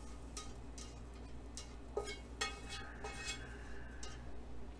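Plastic slotted turner scraping and tapping against a nonstick frying pan as cooked vegetables are pushed out onto a plate: a run of soft scrapes and light clicks, some with a brief ring.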